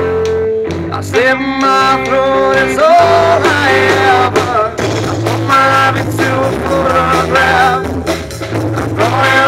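A male singer singing a song live with a small band, an acoustic guitar and an electric bass under the voice.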